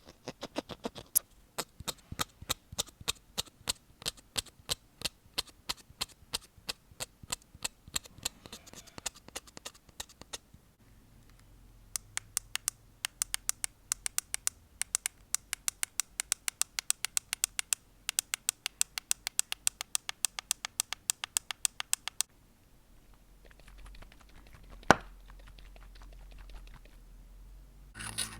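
Close-miked ASMR tapping: a run of sharp clicks about two to three a second, a short lull, a second run of clicks, then a single sharp click near the end.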